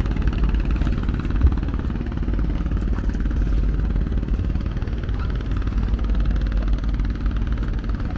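An engine running steadily: a low, even rumble with a fast throb. There is a single low thump about a second and a half in.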